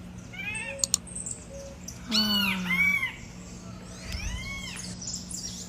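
Birds calling outside: a few short calls that rise and fall in pitch, spaced out, the loudest about two seconds in. A steady low hum runs underneath, and two sharp clicks come near the start.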